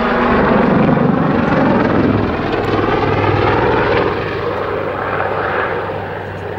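Army Air Corps Westland Lynx helicopter's rotors and twin turboshaft engines running hard as it pulls out of a backflip. The sound is loudest about a second in and fades gradually over the last few seconds as it draws away.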